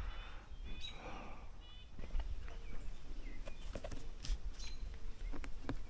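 A bare hand knocking and slapping on a tree trunk's bark: several sharp knocks in the second half, tapping the trunk to test the holds and to stir any animal living in the tree. Birds chirp in the background.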